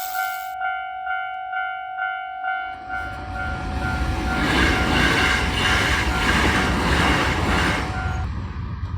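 Japanese level-crossing warning bell ringing its repeated 'kan-kan' ding about twice a second. About three seconds in, a Hankyu train rumbles through the crossing with rhythmic wheel clacks over the rail joints. The bell stops near the end as the train noise fades.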